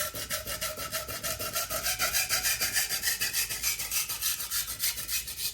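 Steel knife edge scraping on a sharpening stone in short, quick back-and-forth strokes at an even rhythm, grinding a new bevel to raise a burr.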